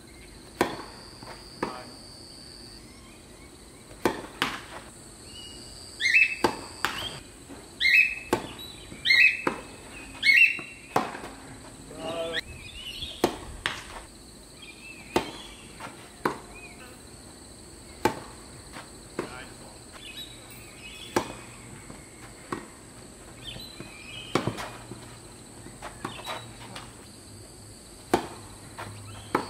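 Tennis balls struck by racquets and bouncing on the court through serves and rallies: sharp pops a second or more apart. Between about 6 and 11 seconds in, a run of five short, high chirps rings out, louder than the ball strikes.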